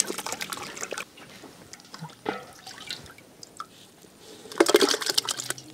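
A knife cutting ash gourd into cubes on a wooden board, a few crisp cuts and knocks. About four and a half seconds in, a short cluster of splashes as the cubes slide off the board into a pot of lime water.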